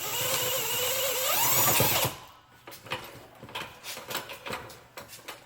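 Cordless impact gun running on a bolt for about two seconds, its motor whine rising in pitch before it cuts off, followed by light metallic clicks and rattles of the tool and bolt.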